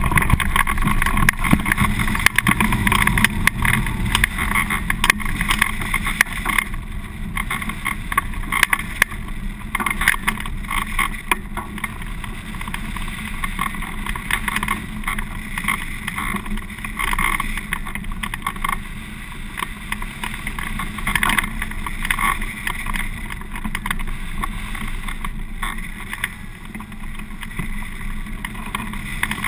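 Airflow rushing and buffeting over a hang glider's wing-mounted camera in flight, a steady loud rush that is strongest in the first few seconds after launch.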